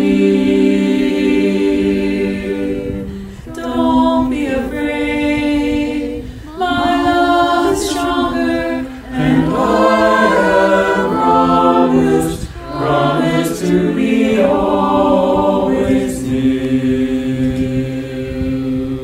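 Small mixed choir of men's and women's voices singing a slow hymn a cappella in harmony. Long held chords are broken by short pauses between phrases.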